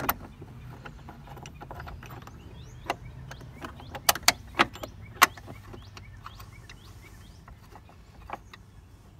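Scattered metallic clicks and knocks from a steel grab handle, bolt and long socket extension being worked into a Jeep Wrangler JK's windshield-pillar mount, starting the lower bolt. A quick cluster of sharp clicks comes about four to five seconds in.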